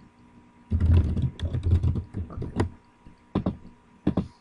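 Computer keyboard typing: a quick run of keystrokes starting about a second in, then a few single clicks.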